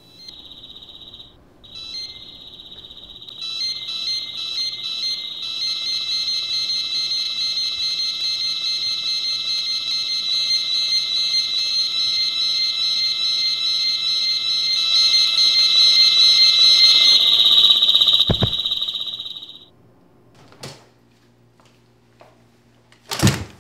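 Shrill, steady electronic tone like an alarm, with more high tones stacking on top after a few seconds. It grows louder, then cuts off suddenly. A thump lands just before the cutoff, and another loud thump comes near the end.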